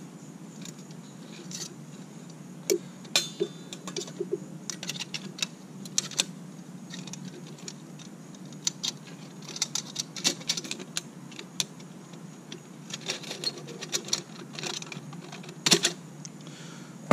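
Small metallic clicks and clinks, irregular and scattered, as a wire clamp ring is fitted around the rim of a wet-niche pool light fixture and its lens, over a steady low hum.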